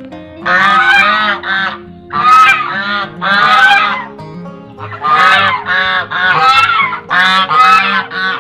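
Waterfowl calling loudly and repeatedly, the calls coming in pairs and short runs of three, over background guitar music.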